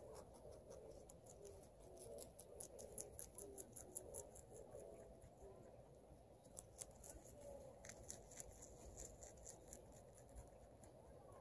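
Domestic rabbit chewing grass and leaves close up: faint, quick, crisp crunching clicks that come in two runs, one in the first half and one just past the middle.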